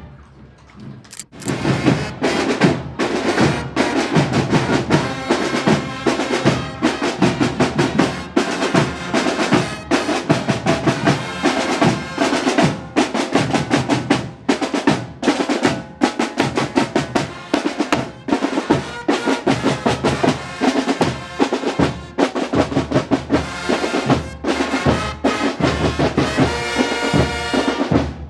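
A fanfarria brass band playing, with snare and bass drums keeping a steady beat under the brass. The band comes back in after a short pause about a second in.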